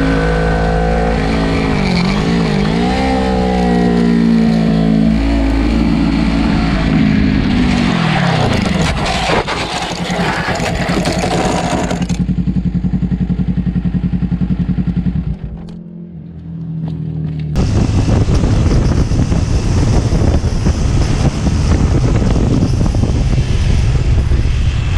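Sport motorcycle engine revving up and down through the gears, then its revs drop sharply, followed by a few seconds of rough scraping noise as the bike goes down. The engine then runs on steadily. After a cut comes the rush of wind with a motorcycle engine at road speed.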